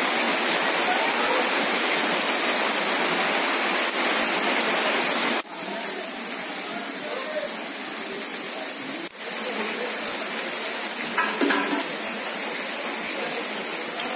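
Heavy rain falling on flooded ground, with rainwater gushing and splashing in a steady hiss. The sound drops abruptly in level about five seconds in and again about nine seconds in, at cuts between shots.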